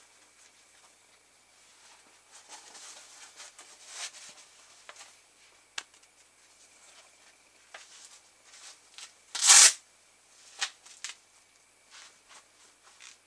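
Hands handling and pulling on a neoprene goalkeeper glove: soft rustling and rubbing of fabric, with small clicks. About two-thirds of the way through comes one loud, short rasp, the glove's Velcro wrist strap.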